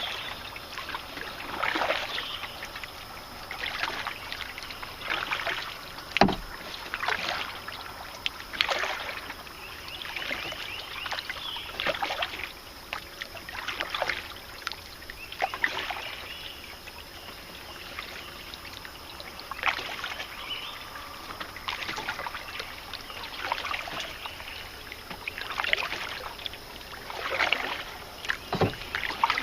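Canoe paddle strokes splashing and pulling through river water, roughly one stroke every two seconds, with a sharp knock about six seconds in.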